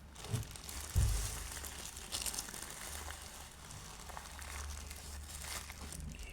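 Polythene wrapping crinkling and rustling as the speaker is handled, with a soft thump about a second in.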